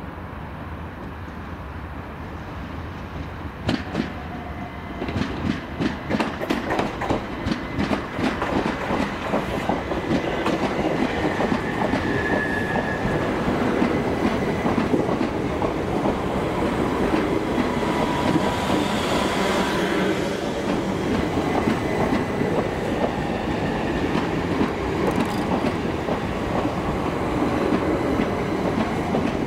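Southern Class 377 Electrostar electric multiple unit, two units coupled, arriving into the platform. From about four seconds in, its wheels give a run of clicks over the pointwork and rail joints, then a steady rumble as the coaches run past, with a couple of brief high wheel or brake squeals.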